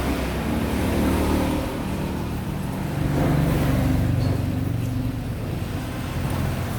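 A motor vehicle's engine running with a low rumble that swells about a second in and again for a couple of seconds from about three seconds in.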